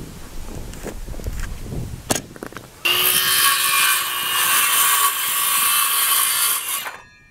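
Cordless circular saw cutting through a wooden board. It starts suddenly about three seconds in, runs steadily for about four seconds and stops shortly before the end. A few light knocks from handling the board come before it.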